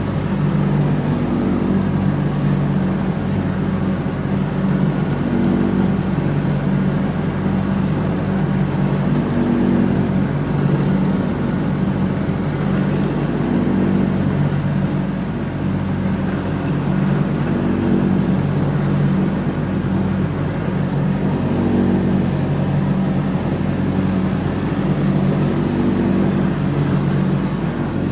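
John Deere X304 lawn tractor engine running steadily while mowing, its pitch wavering slightly every few seconds.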